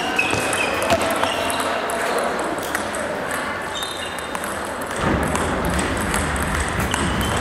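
Table tennis ball clicking off bats and the table in a short rally, then scattered ball pings from play on neighbouring tables, echoing in a large sports hall. A low rumble comes in about five seconds in.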